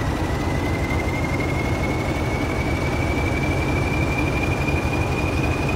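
Class 40 diesel locomotive's English Electric 16SVT sixteen-cylinder engine running, a steady low rumble under a high turbocharger whistle that slowly rises in pitch.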